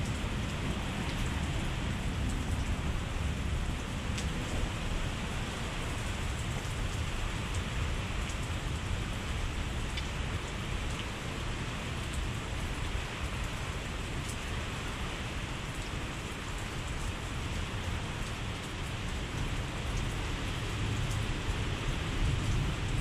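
Steady rain falling, with a low rumble underneath and a few faint drop clicks.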